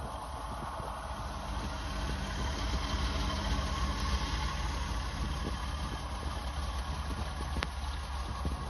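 1985 Chevy van's carbureted V8 engine running steadily, its sound sitting mostly deep and low.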